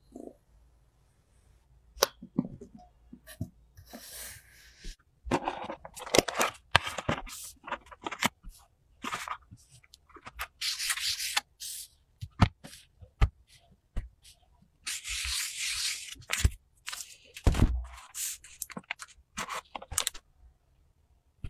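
Close-up handling sounds of kinetic sand being packed by hand into a thin plastic face-mask mould: scattered sharp clicks and taps, with several stretches of a second or two of crinkling and scraping.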